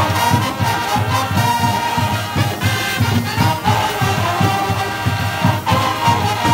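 Marching band playing: a brass section of trumpets carries a melody in held notes over a drumline of snare, tenor and bass drums beating a fast, steady rhythm.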